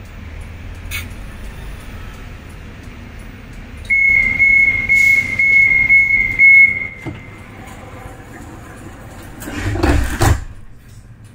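Tram's electronic door-closing warning: a high beeping tone pulsing about twice a second for some three seconds. A brief clunk and rattle follows near the end, over the low hum of the standing tram.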